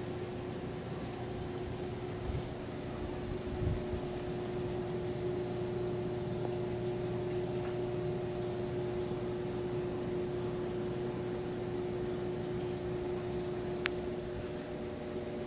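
Steady mechanical hum with a steady mid-pitched tone over an even hiss. There are a couple of soft bumps a few seconds in and a sharp click near the end.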